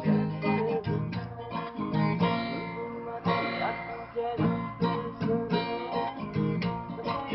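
Music: an acoustic guitar strummed and picked in a steady rhythm, with no singing.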